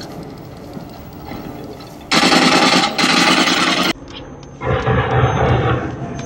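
Bursts of rapid machine-gun fire. Two loud, dense bursts come about two seconds in, and after a short break a duller stretch of heavy fire runs near the end.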